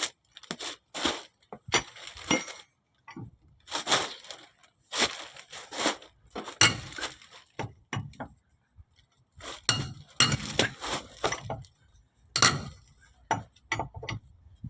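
Irregular metallic clinks, clanks and knocks from tools and parts being handled, in scattered bursts with short pauses between them.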